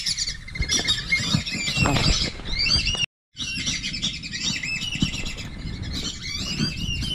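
A chorus of many birds calling at once: overlapping short, sliding high chirps and whistles, broken off for a moment about three seconds in.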